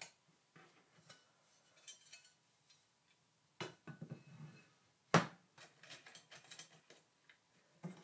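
Aluminium extrusion profiles and a corner bracket being handled and fitted with a small precision screwdriver: scattered light metallic clicks and taps, with sharper knocks about three and a half and five seconds in, the second the loudest.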